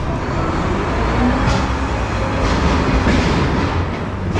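Loud city street noise: a heavy low rumble with scattered clanks and clatter, which the listening hints liken to a train running on rails.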